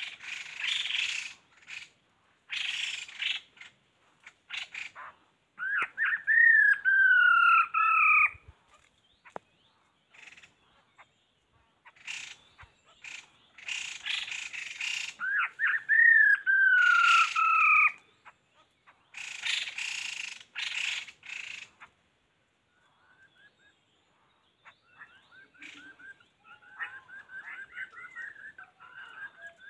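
Birds calling: loud harsh chattering bursts, twice broken by a long whistled call that slides down in pitch, then softer warbling near the end.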